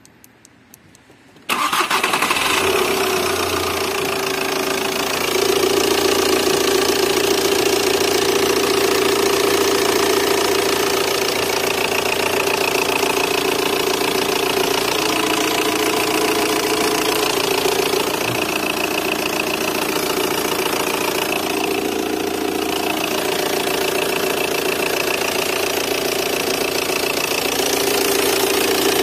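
Car diesel engine started cold, catching abruptly about a second and a half in and settling into a steady idle.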